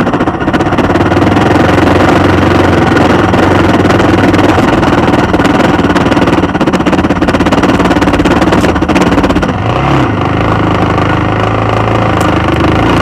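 Suzuki XF650 Freewind's single-cylinder 650 cc engine running steadily as the motorcycle is ridden. About ten seconds in, the revs rise and fall briefly, then settle to a steadier, lower note.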